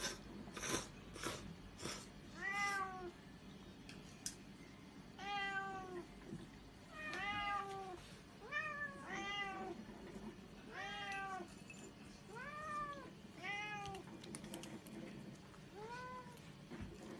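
Domestic cats meowing repeatedly, about nine meows, each rising and then falling in pitch, while begging for food at a table. A few sharp clicks sound in the first two seconds.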